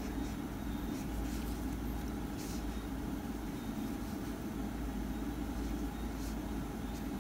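Steady low background rumble, with a few faint soft rustles from handling a crocheted piece and yarn.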